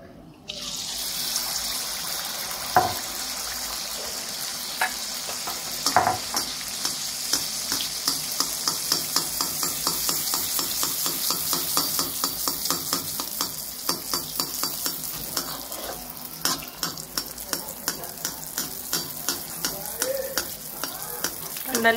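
Neyyappam batter (rice and jaggery) frying in hot ghee in a small iron pan: a dense sizzle full of fine crackling pops. It starts suddenly about half a second in, as the batter hits the ghee. There is a sharper click about three seconds in and another about six seconds in.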